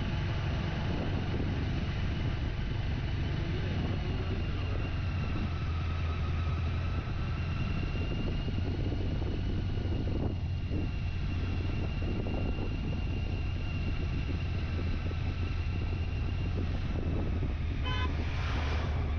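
Motor vehicle running with a steady low hum, and a quick string of short horn beeps near the end.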